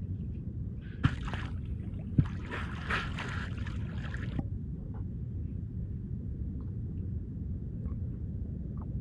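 Dolphins surfacing and blowing through their blowholes with burp-like sounds: a sharp pop about a second in and another about two seconds in, then a longer splashy rush of breath and water around three seconds in. A steady low rumble of water and boat sits underneath.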